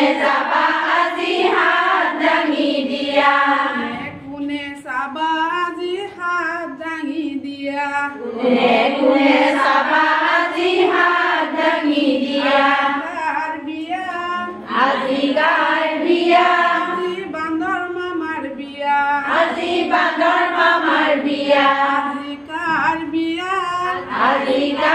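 Several high voices singing a song together, with brief breaths between lines.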